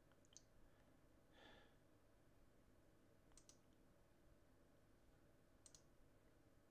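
Near silence: faint room tone with a few soft, brief clicks.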